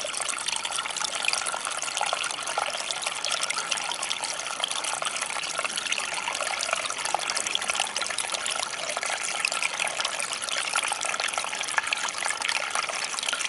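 Small creek trickling and splashing steadily over rocks in a narrow channel, a continuous babble of water with little low rumble.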